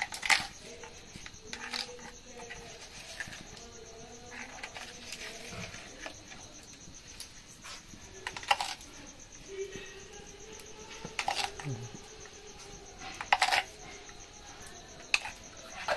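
Crickets chirring steadily, with several sharp clinks scattered through and faint voices in the background.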